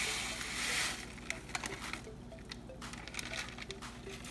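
Dry yellow rice poured from its packet into a saucepan of boiling water: a rushing hiss for about the first second, then scattered sharp clicks and pops.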